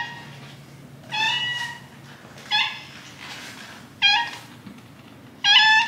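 Orange tabby cat meowing repeatedly: about five separate meows, roughly one every second and a half.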